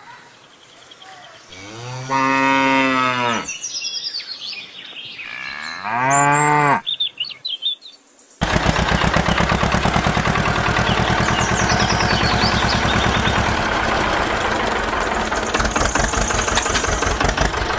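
A cow mooing twice, a long call and then a shorter one. About eight seconds in, a loud, fast, steady mechanical clatter takes over.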